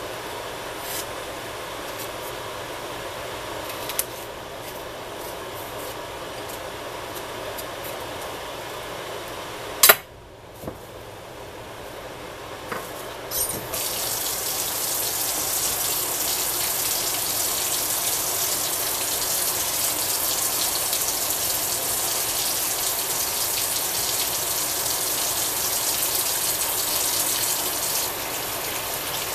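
Kitchen tap turned on and running steadily into a sink, a loud even splashing hiss from about halfway through. Before it there is a quieter steady hiss with light clicks, and one sharp knock, the loudest moment, comes just before the tap gets louder.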